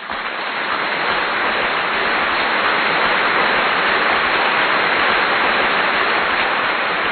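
A steady rushing hiss, like rain falling, that fades in over the first second and then holds even.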